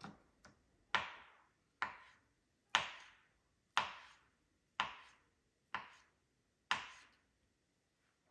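A knife chopping on a cutting board in slow single strokes, about one a second, some eight in all, each a sharp knock that fades quickly.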